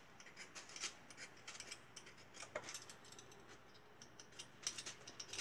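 Hand vegetable peeler scraping the skin off a raw potato in short, quick, repeated strokes, faint.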